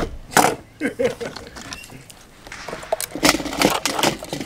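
12-gauge shotgun shells being handled and loaded by hand: a series of short clicks and rattles, loudest near the start and again about three seconds in.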